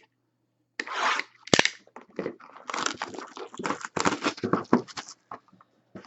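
Trading-card box packaging being torn open and handled: irregular tearing, crinkling and rustling, with a sharp click about a second and a half in.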